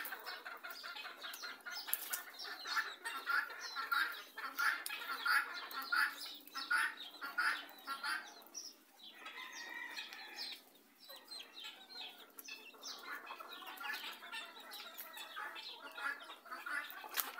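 Chicken clucking: rapid, repeated short clucks, with a lull about nine to eleven seconds in before the clucking resumes.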